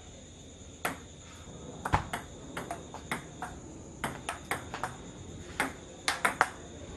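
A table tennis rally: the plastic ball clicks sharply off the paddles and the table, in quick irregular runs of hits. Crickets chirp steadily underneath.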